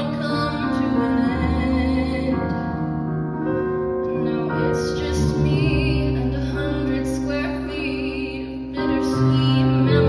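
Female singer performing a slow, tender ballad into a microphone over sustained instrumental accompaniment, holding long notes.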